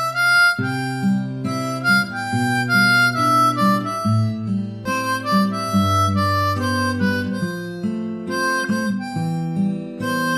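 Background music: a harmonica tune played in chords, the notes changing every fraction of a second.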